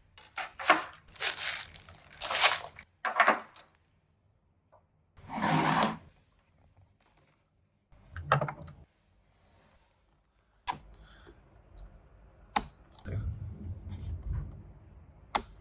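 Handling noises: several short bursts of rustling or tearing, then a few sharp clicks or knocks with a low rumble between them.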